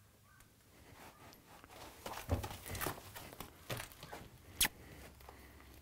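Hooves and boots shuffling and thudding on a horse trailer's shavings-covered floor as a horse steps forward up to the trailer, with rustling shavings and a few sharp knocks. The sharpest knock comes about four and a half seconds in, after a near-quiet first second or two.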